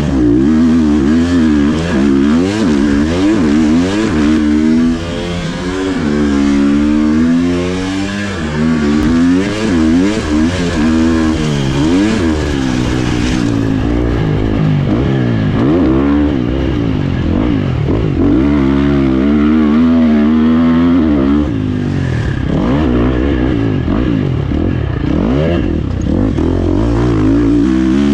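Husqvarna FC 350 four-stroke single-cylinder dirt bike engine under hard riding, its pitch repeatedly rising under throttle and dropping off for shifts and corners.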